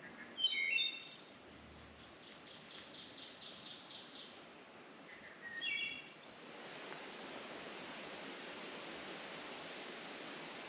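A songbird calls twice, each call a short phrase of quick stepped notes, about five seconds apart, with a faint trill of evenly repeated notes between them. From about six seconds in, a steady rushing hiss takes over.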